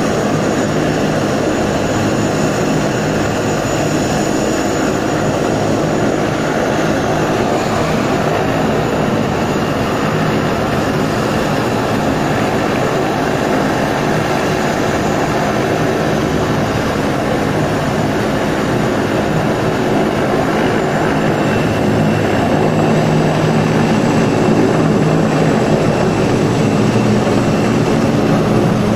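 CH-53 heavy transport helicopter running with its rotors turning: a loud, steady rotor and turbine noise with a faint high whine. It grows louder over the last several seconds as the helicopter lifts off.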